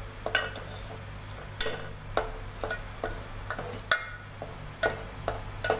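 Metal spoon stirring thick semolina halwa in a steel pan, clinking against the pan about twice a second.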